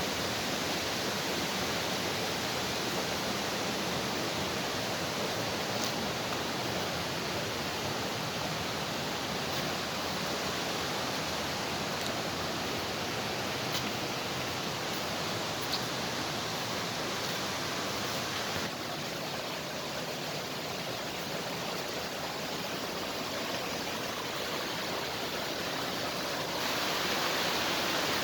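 Creek water rushing steadily over rocks, an even hiss; it softens a little about two-thirds of the way through and grows louder again near the end.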